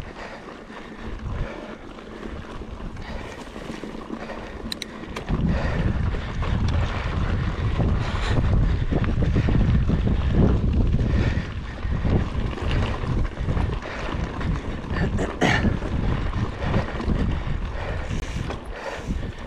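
Wind buffeting the microphone in uneven gusts, growing much stronger about five seconds in. A few short sharp clicks cut through it.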